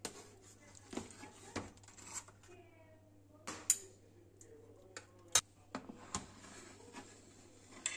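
Scattered clinks and knocks of cutlery against dishes, a dozen or so irregular strikes, the sharpest a little past the middle.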